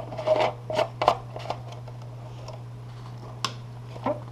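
Plastic clicks and knocks from closing and handling a humidifier's water tank: a quick run of clicks in the first second and a half, then two sharp clicks near the end.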